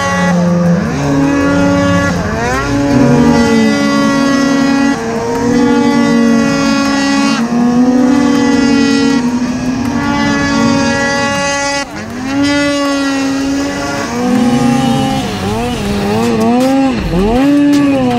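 Snowmobile engines running hard at high revs, holding a steady pitch with a sharp drop where the throttle is let off about twelve seconds in, then revving up and down repeatedly near the end.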